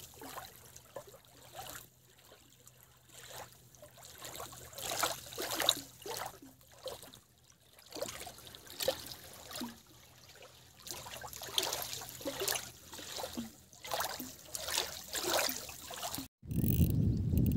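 Small waves lapping and splashing at the river's edge in irregular wash-ins, about one or two a second. Near the end the sound cuts off abruptly and gives way to a low rumble of wind on the microphone.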